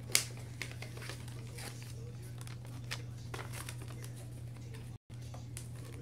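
Paper and card rustling and crinkling as torn pieces of a photo poster are handled, with scattered light taps and one sharper tap just after the start, over a steady low hum.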